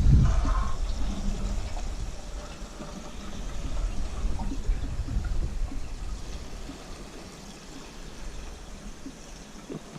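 Fuel being poured from a can into the wood chipper's small-engine fuel tank, a steady pour, with a low rumble loudest in the first couple of seconds.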